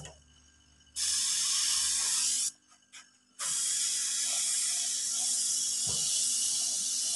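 Sagola HVLP spray gun hissing as compressed air blows through it. The hiss cuts out twice, early and again for about a second in the middle, as the trigger is released, then runs on steadily.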